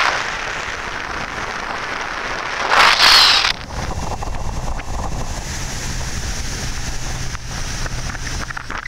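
Wind buffeting the microphone and water rushing past a motor-driven sportfishing boat under way, with a loud gust about three seconds in. After the gust a steady low engine hum runs underneath the wind.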